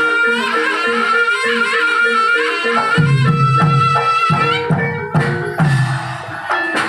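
Jaranan gamelan music: a slompret (a shrill reed wind instrument) plays a wavering melody over repeating gong-chime notes. About three seconds in, deep hand-drum strokes join. The reed drops out near the end, leaving the drums and percussion.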